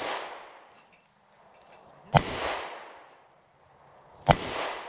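10mm Glock 20 pistol firing at an AR-500 steel plate: two shots about two seconds apart, each a sharp crack with the smack of the bullet on the steel and a decaying echo. At the very start the echo of a shot fired just before is still fading.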